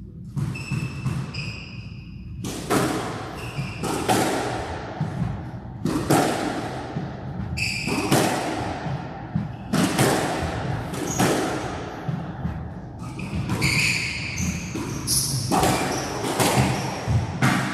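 Squash rally: the ball cracking off rackets and the court walls about every two seconds, with an echoing ring after each hit and shoes squeaking on the court floor between shots.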